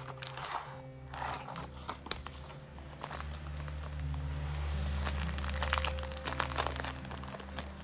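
Plastic packaging crinkling and rustling as it is handled, with many small crackles throughout, over soft background music with held low notes.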